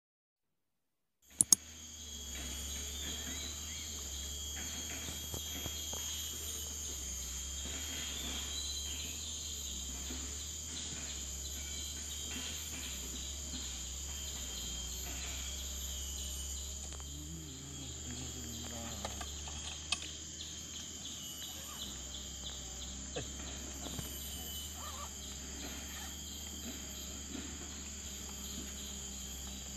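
After about a second of silence, a steady, high-pitched insect chorus over a low steady rumble, with a few small clicks.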